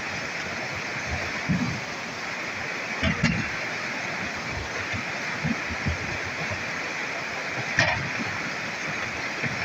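Flooded river rushing steadily, a constant hiss of fast churning water, with a few brief low thumps over it.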